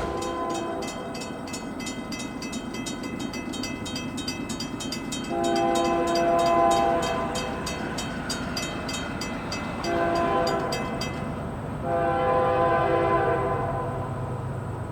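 Nathan Airchime K3L three-chime locomotive air horn sounding the grade-crossing pattern. A blast ends just after the start, a long blast comes about five seconds in, a short one near ten seconds, and a last long blast follows. The steady rumble of the approaching train runs underneath.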